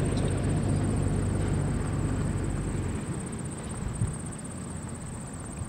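Low steady hum of a vehicle engine that drops away about three seconds in, under a steady high trill; a single knock about four seconds in.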